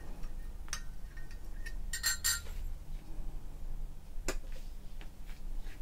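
Metal teaspoon clinking against a glass measuring jug while stirring sugar into hot tea: a few light, ringing clinks, then one sharper knock a little after four seconds in.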